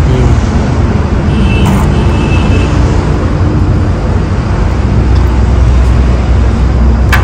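Steady low rumble of passing road traffic on a highway, with no single event standing out.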